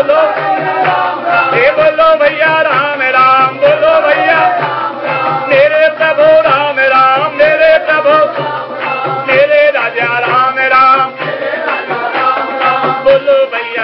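Hindu devotional kirtan: a voice singing a bhajan melody over a steady drum beat with percussion strokes.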